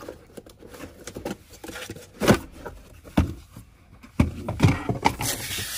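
Handling noise as a back-seat baby mirror is unpacked from its cardboard box: a few separate knocks and taps, with rustling near the end.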